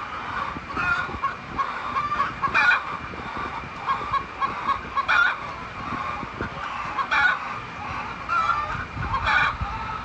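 A flock of chickens clucking, many birds calling over one another, with a louder, sharper call standing out every two seconds or so.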